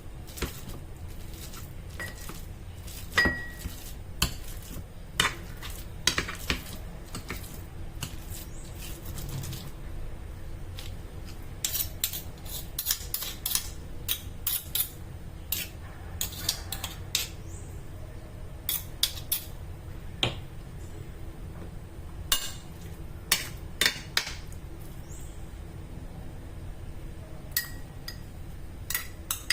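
A metal utensil clinking and tapping irregularly against a bowl while guacamole is mixed, with some quick runs of taps.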